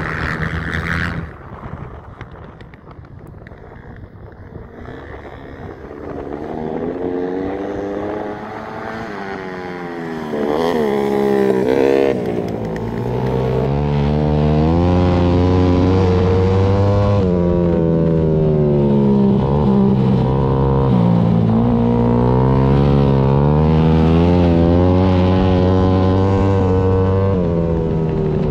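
Dirt bike engine heard from a camera mounted on the bike, its pitch rising and falling over and over as the rider opens and closes the throttle around an ice race track. It is quieter for the first few seconds, after a brief different sound that cuts off about a second in, and runs loud and steady from about halfway.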